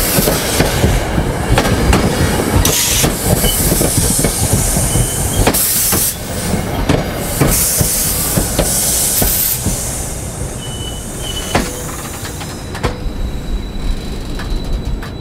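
Metro-North stainless-steel commuter coaches rolling past close by, wheels clicking over the rail joints with bursts of hiss and a few short high wheel squeals. The sound eases about halfway through as the train slows.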